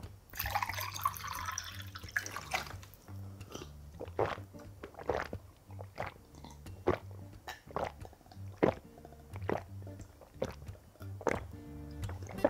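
A man gulping water from a glass, with a steady series of short swallows about once a second, after a brief burst of noise at the start. Quiet background music plays under it.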